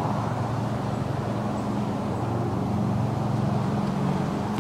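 Parked school bus's engine idling, a steady low hum.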